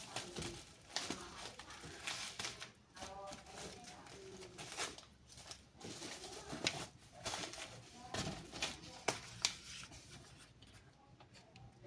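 Parcel packaging being handled and opened by hand: irregular rustling and crinkling of plastic and paper, with sharp snips and tearing.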